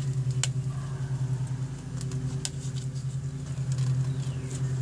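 A steady low mechanical hum with a rapid pulse, like a motor running nearby, with a few light metallic clicks and scrapes as a piston compression ring is squeezed, turned and seated in the cylinder bore.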